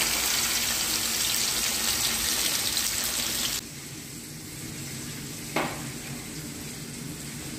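Masala-marinated kingfish steaks sizzling as they fry in hot oil in a pan. The sizzle cuts off abruptly a little past halfway, leaving a low steady hum with one brief knock near the end.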